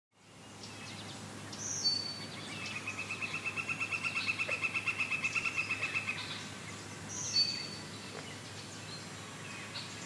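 Summer creekside wildlife: a short high bird call twice, with a long, evenly pulsed trill between them that grows louder and then stops. A faint steady hum lies underneath.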